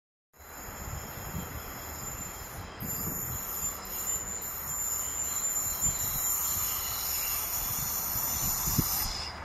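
WM-15A track maintenance motor car running on the rails, a low rumble with a steady high-pitched wheel squeal over it. The squeal stops near the end.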